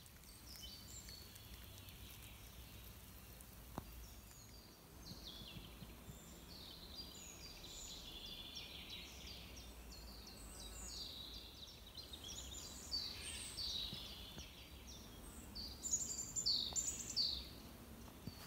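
Woodland songbirds singing, many short chirps and trills overlapping, louder near the end, over a low steady background rumble.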